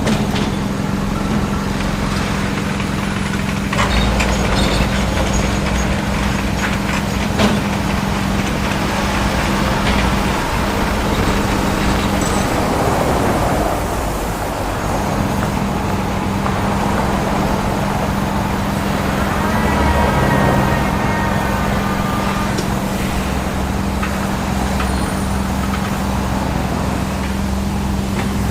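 A heavy engine running with a steady hum and low rumble, easing briefly about halfway through.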